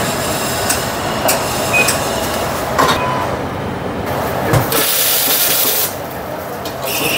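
Coffee-shop counter noise while a hot drink is made: scattered knocks and clinks of cups against a steady background hum. About five seconds in comes a hiss of about a second from the espresso machine's steam.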